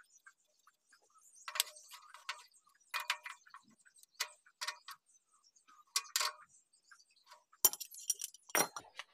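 Metal tools clinking and tapping against engine parts in irregular sharp strikes, about nine in all: the rocker-arm tappet adjusting nut of a diesel engine being tightened with a spanner.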